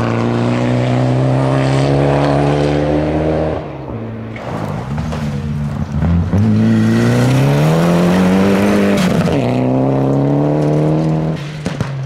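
Rally car engines at high revs on a gravel stage: first a Mitsubishi Lancer Evolution's turbocharged four-cylinder held high through a slide, then after a cut another car accelerating hard, its pitch climbing for about three seconds before dropping sharply at a gear change. Gravel and tyre hiss runs under the engine note.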